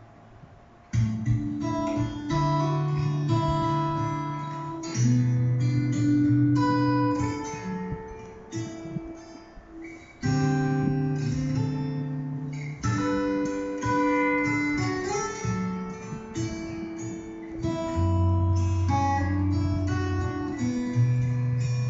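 Acoustic guitar instrumental, a picked melody over ringing bass notes and chords. It starts about a second in after a brief pause.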